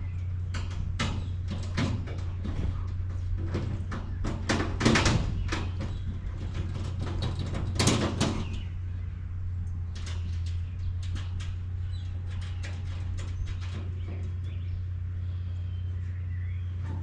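Galvanized steel raised-bed panels and bolts being handled and tightened: metal knocks and clanks, the loudest about five and eight seconds in, then runs of quick clicking. A steady low hum lies underneath.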